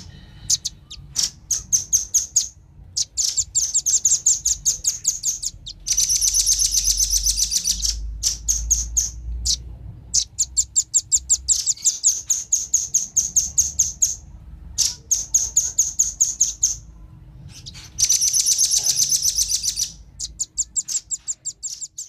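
Male and female velvet-fronted nuthatches calling: runs of rapid, sharp, high chip notes, with some stretches fast enough to run together into trills, broken by short pauses.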